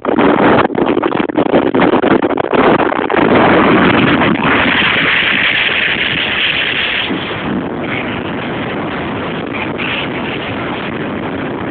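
Blizzard wind buffeting the microphone: a loud, gusting rush of noise that surges and drops in the first few seconds, is strongest around five seconds in, then settles to a steadier rush.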